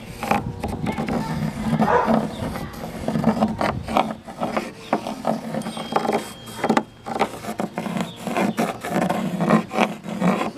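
Carpenter's pencil scratching on plywood in short, irregular strokes as it traces around the edge of a plastic lid.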